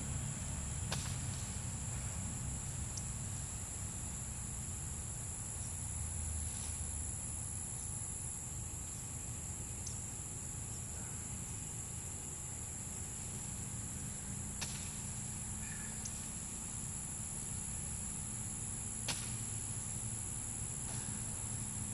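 Insects trilling steadily in two high-pitched bands over a low, steady rumble, with a few sharp clicks: about a second in, midway through, and near the end.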